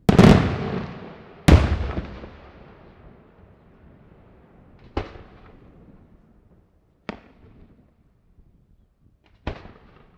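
Daytime fireworks shells bursting overhead with sharp, echoing bangs. Two loud reports come right at the start and about a second and a half in, each trailing off slowly, followed by three fainter bangs a few seconds apart.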